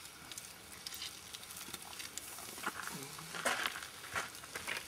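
A marinated roast sizzling on a foil tray over a wood campfire grill, a steady hiss studded with crackles. A few sharper pops come in the second half.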